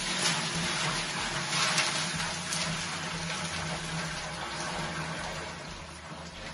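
Water poured from a bucket into an empty glass aquarium, gushing and splashing onto the gravel bed. The pour starts suddenly and slowly tapers off toward the end.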